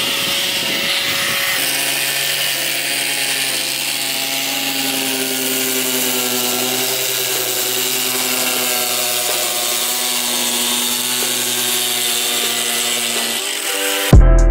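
Handheld angle grinder running and cutting through a wooden splitter board, a steady whine over a hiss of cutting noise. Loud music with a beat cuts in near the end.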